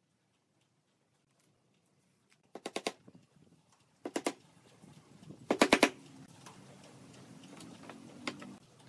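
Wooden mallet tapping nails into pine boards in three quick flurries of light blows, the last one the loudest.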